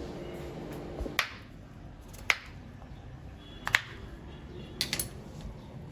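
Five sharp clicks or taps spaced about a second apart, the last two close together, with faint background music fading out about a second in.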